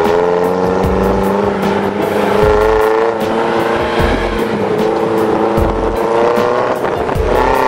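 Background music with a steady beat: a regular low drum pulse, quick high ticks and held bass notes.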